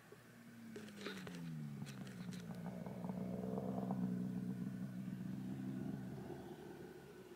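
Snowmobile engine running, its pitch settling down over the first second or so and then holding a steady idle, with a few light clicks about a second in.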